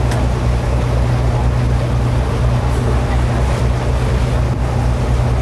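Cruise boat's engine running steadily with a low drone, over a constant rush of wind and water on the open deck.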